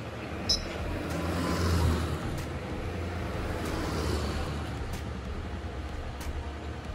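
Steady vehicle cabin noise: a low engine hum under a rumble that swells about two seconds in and again around four seconds. A brief high-pitched beep sounds about half a second in.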